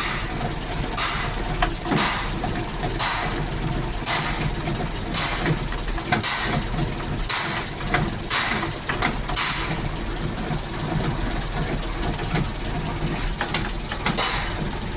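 A vehicle's engine running with a sharp metallic noise from the driveline, repeating about once a second and less regularly near the end. This is the kind of rotational noise a worn driveshaft or U-joint makes.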